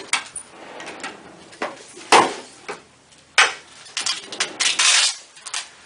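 Handling noises: a few sharp knocks, the loudest about two seconds in and another a second and a half later, then rustling and rubbing near the end.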